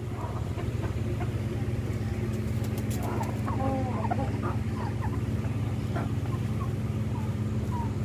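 Aseel chickens giving a few short calls, most of them about three to four seconds in, over a steady low machine hum.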